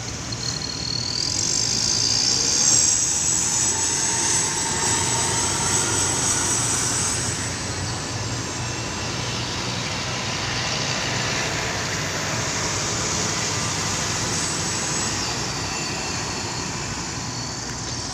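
Steady drone of a ferry's engines and shipboard machinery: a low hum under a higher hiss that swells over the first few seconds and eases off slightly towards the end.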